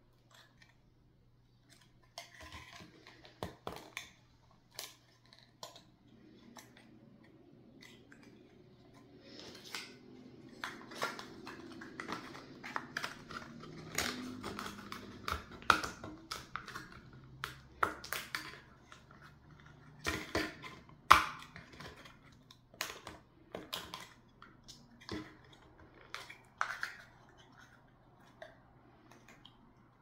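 Light wooden craft pieces and paper being handled and set down on a table: irregular clicks, taps and knocks, with a stretch of rustling from about a third of the way in to about halfway.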